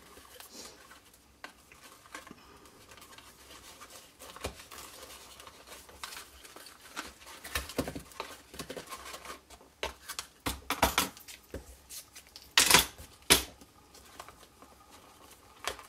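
Ribbon being wrapped around a small cardstock box and tied, heard as soft rustling and sliding with short swishes, two sharper ones about three-quarters of the way through.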